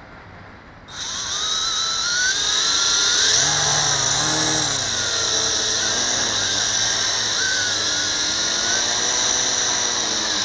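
WLtoys V262 quadcopter's four electric motors and propellers spinning up while the craft is held in the hand: a sudden high whine about a second in, its pitch rising and falling as the throttle is worked. The run-up tests the motors, and the rear-right one is losing power: a burnt-out motor.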